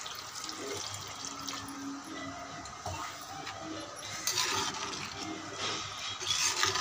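Water poured from a jug into a clay pot of thick tamarind fish curry, running and splashing into the liquid, then the curry stirred with a metal slotted ladle, with short rough scraping spells about four seconds in and near the end.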